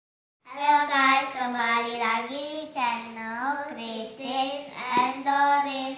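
A child singing a melody with long held notes, starting about half a second in.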